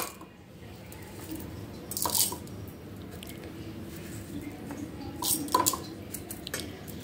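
Stainless-steel kitchen vessels clinking as they are handled: two brief sets of light metallic knocks with a short ring, about two seconds in and again around five and a half seconds, over a faint steady background.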